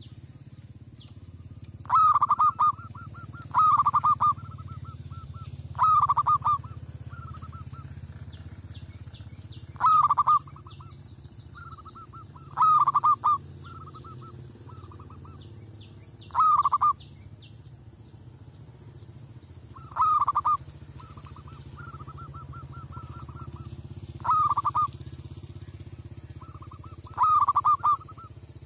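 Zebra dove cooing its staccato song: about nine loud, rolling coo phrases, one every two to four seconds, with softer rapid cooing notes between them. It is the aggressive calling of a decoy dove roused to challenge wild doves. Faint high chirps of other small birds sound in the background.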